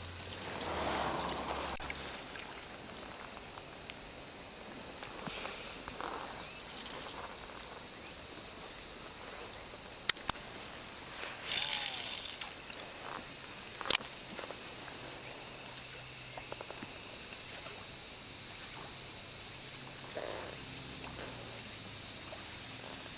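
Dense, steady chorus of insects, high-pitched and unbroken. A few sharp clicks cut through it around the middle.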